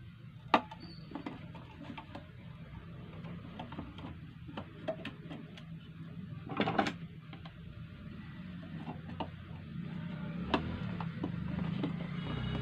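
Scattered clicks and knocks of a sewing-machine foot pedal being handled and worked on, with one sharp click about half a second in and a louder cluster of knocks midway, over a steady low hum.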